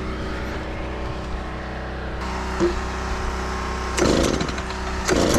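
Small engine running steadily, with a louder burst of noise about four seconds in.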